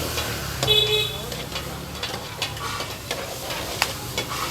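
Food sizzling in a large frying pan at a street stall, with a metal spatula scraping and clicking against the pan in short strokes. A short vehicle horn sounds about a second in.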